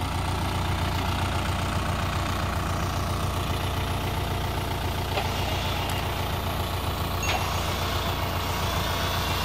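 Toyota Hilux LN's diesel engine idling steadily.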